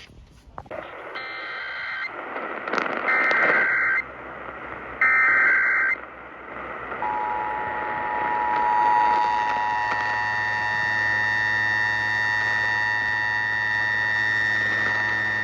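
Emergency Alert System header on a radio broadcast: three shrill warbling data bursts about a second long, a second apart, then from about seven seconds in the steady two-tone attention signal, held without a break. This is the opening of an EAS test message.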